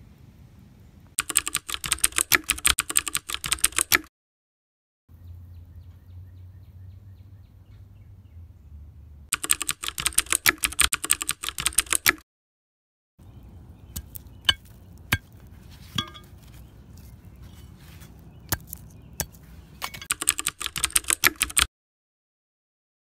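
Rapid clicking in three bursts a few seconds long each, with scattered single clicks between the second and third bursts. Each burst cuts off abruptly.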